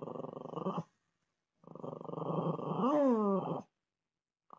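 Small dog growling with a pacifier held in its mouth: two long growls with a gap between, the second rising and then falling in pitch near its end.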